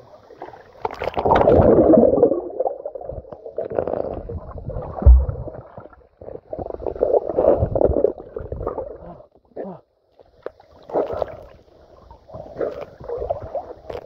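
River water sloshing and gurgling against a camera dipped in and out of the surface, in irregular surges. There is a short low knock about five seconds in.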